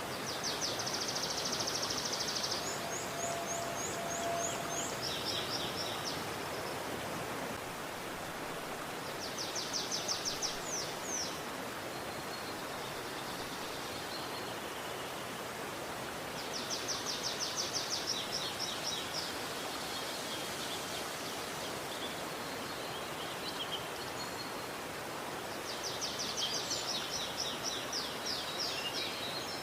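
Steady rushing of a river, with a small songbird singing rapid high trilled phrases over it in four bouts, each lasting about two to five seconds.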